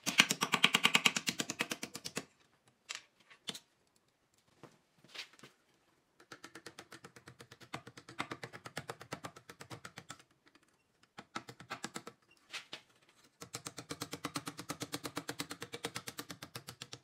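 Blacksmith's hand hammer striking hot steel on a stake held in a post vise, in three runs of quick, rapid blows, several a second. The runs are separated by pauses with a few single strikes.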